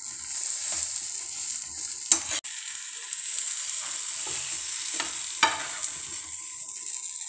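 A dosa sizzling steadily on a hot tawa while a steel spatula scrapes under it to fold it and lift it off, with a sharp scrape about two seconds in and another about five and a half seconds in.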